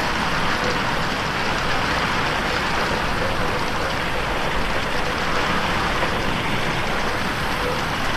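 Steady rain falling on a window pane, an even hiss with no pauses.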